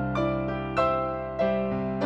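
Piano improvisation: three chords struck about every two thirds of a second, ringing over sustained low bass notes.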